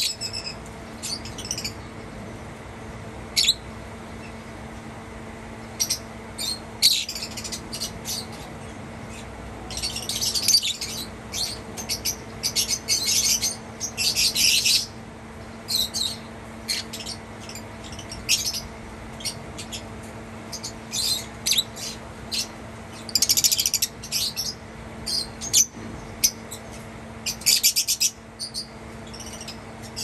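Lovebirds chirping: short, shrill, high calls in rapid clusters, busiest around the middle and again near the end.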